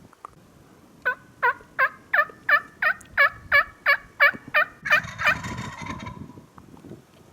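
A run of about a dozen turkey yelps, evenly spaced at about three a second, each note falling in pitch. The run is followed by a short rustle.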